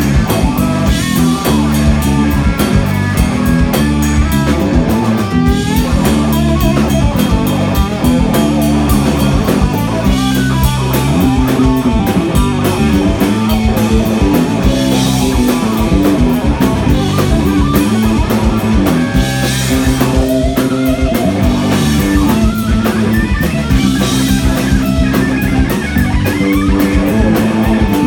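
Live blues-rock trio playing an instrumental passage: electric guitar over electric bass guitar and a drum kit, loud and continuous.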